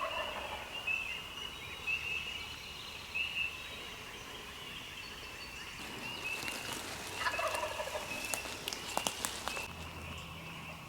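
A wild turkey gobbler gobbling twice, once right at the start and again about seven seconds in, calling from the roost at daybreak.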